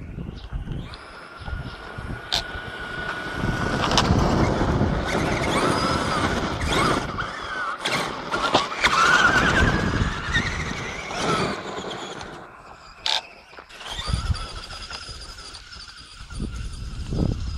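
Traxxas Summit RC monster truck's Neu 1717 1580 Kv brushless electric motor whining as it is driven hard, its pitch rising and falling with the throttle, over a loud rough rushing noise. The whine rises steeply about nine seconds in, and the sound fades as the truck moves away near the end.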